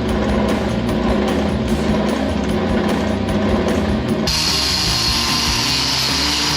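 A power tool running under background music with a steady beat; about four seconds in the sound changes abruptly to a steady, higher hiss.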